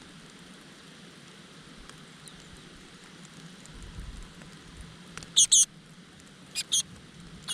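Great tit chicks giving loud, high-pitched begging calls in short bursts over a steady hiss: a pair of calls a couple of seconds before the end, then two shorter ones near the end.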